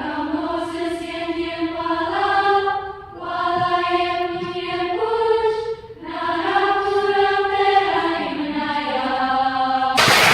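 Wordless choir-like voices holding long, slow notes in three phrases of about three seconds each, the pitch stepping up and down between them.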